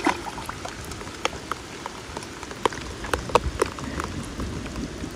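Steady rain falling, with scattered sharp ticks throughout.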